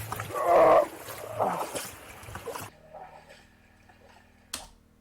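Water splashing and sloshing in a shallow river, with wind on the microphone and a loud burst of splashing about half a second in. After nearly three seconds it cuts abruptly to quiet room tone with a single sharp click.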